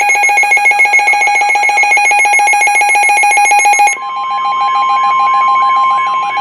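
Weather radio alerting: a loud, rapidly pulsing electronic alarm beep. About four seconds in it gives way to the steady NOAA Weather Radio 1050 Hz warning alarm tone, with the beeping continuing more faintly beneath it.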